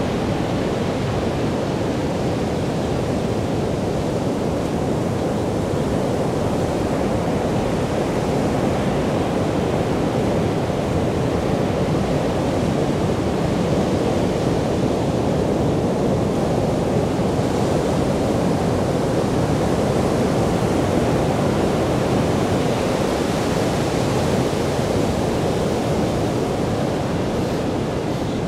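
Caribbean Sea surf breaking and washing up on a beach, heard as a steady rush of noise, swelling slightly a few times.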